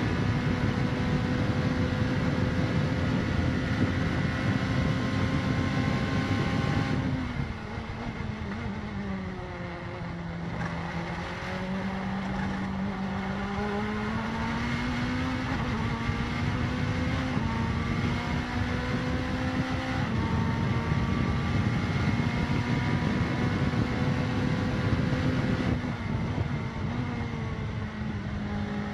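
Mazda prototype race car's turbocharged four-cylinder engine, heard from inside the cockpit, running at full throttle. About seven seconds in it backs off and the engine note falls to a low a few seconds later, then climbs steadily back to full power. It falls away again near the end.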